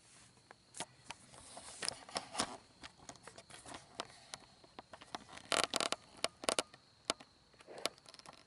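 Camera handling noise: hands and clothing rubbing and scraping on the camera, with a run of sharp clicks and scrapes, densest about five and a half to six and a half seconds in.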